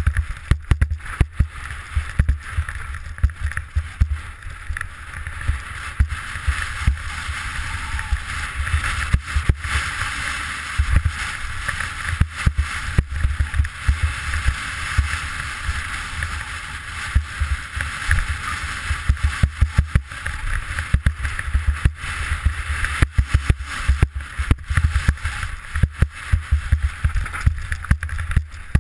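Steady rush of wind and riding noise on a helmet-mounted camera during a fast mountain-bike descent over a rocky trail, with frequent sharp knocks and rattles from the bike and helmet jolting over stones.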